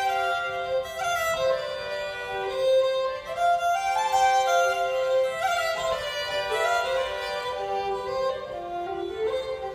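Two fiddles playing a folk tune as a duet, one holding a steady low drone note under the other's melody; the lower part moves to new notes near the end.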